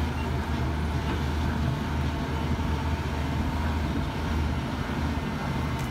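Tracked hydraulic excavator's diesel engine running steadily as it digs soil, a constant low hum with no changes in pitch or loudness.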